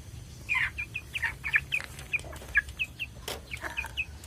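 Chickens clucking, with a quick run of short high chirps throughout and a single sharp knock about three seconds in.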